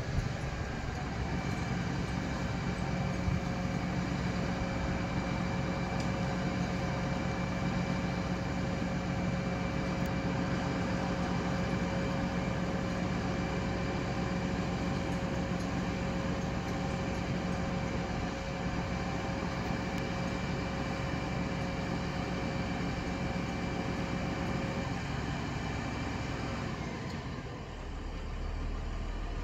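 Turntable ladder fire truck running its engine to power the ladder: a steady mechanical hum with a held whine, which drops away near the end, leaving a lower engine rumble.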